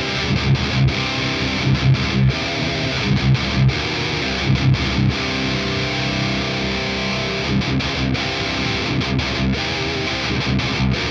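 Distorted electric guitar through an overdriven amp, boosted by a BOSS OD-200 in Tube Screamer mode with drive at zero and level all the way up, playing a riff of short, punchy low notes with held chords in between. The boost is there to tighten up the amp's flubby, fizzy distortion.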